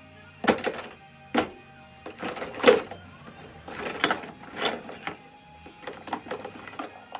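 Metal sockets and a ratchet clinking and clanking as they are handled and tried on water pump bolts: a string of irregular sharp metal clicks and knocks, loudest a little under three seconds in. Faint steady background music under it.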